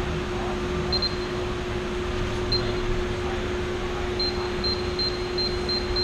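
Minn Kota Co-Pilot wireless remote system beeping as its fob buttons are pressed: short high beeps, one about a second in and another midway, then a rapid run of about two a second near the end, over a steady low hum.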